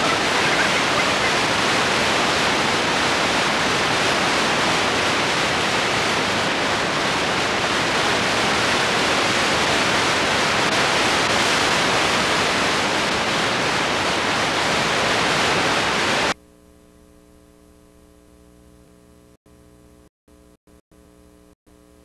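Loud, even hiss of static from a lost satellite remote feed on a live TV broadcast. It cuts off suddenly about sixteen seconds in, leaving a faint low hum broken by a few short dropouts.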